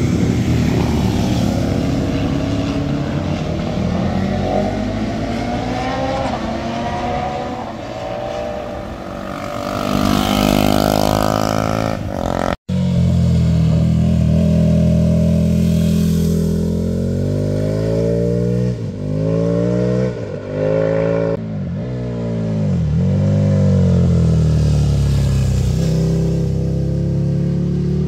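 Motorcycle engines passing through a hairpin bend. The first bike accelerates with its engine note climbing. After a cut, a second bike runs loudly, its pitch dropping sharply and picking up again three times in quick succession as it changes gear, then it climbs again.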